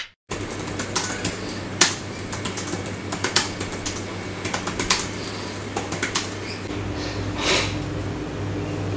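Typing on a laptop keyboard: irregular, quick key clicks for about six seconds. After that they give way to a steady low hum.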